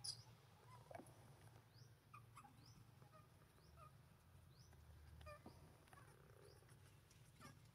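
Faint, high-pitched squeaks from a newborn macaque being handled by its mother: short falling cries repeated every second or so, the first and loudest right at the start.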